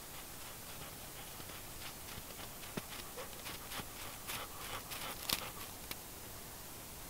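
A dog's paws crunching on packed snow as it runs up, a quick series of short footfalls that grows louder from about two seconds in and stops about six seconds in, over a faint steady hiss.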